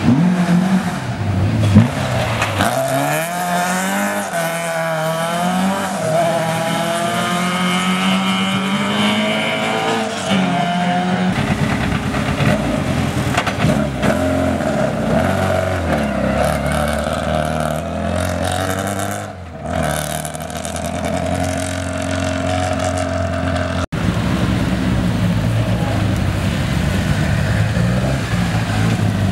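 Classic rally car engines at hard throttle, climbing in pitch through the gears again and again as the cars pass. The sound is made of several clips joined by abrupt cuts.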